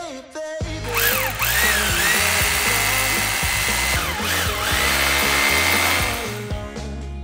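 Handheld electric power tool running at high speed with a steady high whine. Its pitch dips sharply twice as the motor bogs under load, then recovers, over background music.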